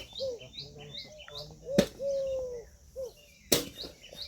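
Indian peafowl calling: a short arched note followed by a long, slowly falling note, repeated. Small birds chirp high above it throughout, and three sharp clicks cut in at the start, about two seconds in, and near the end.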